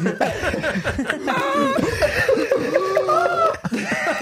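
Several people laughing and chuckling together, their voices overlapping.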